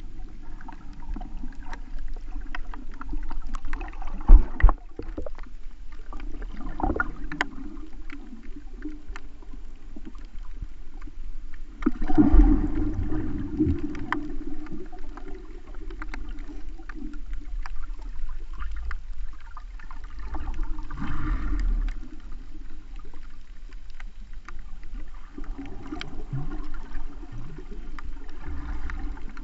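Muffled underwater sound picked up by a GoPro in its waterproof housing: a dull, steady water rumble and sloshing. Two sharp knocks about four seconds in and a louder surge of water noise around twelve seconds.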